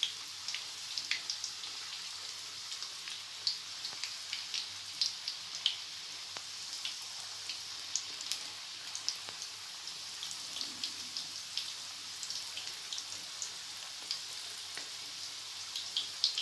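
Samosas deep-frying in hot oil: a steady sizzle with frequent small crackles and pops.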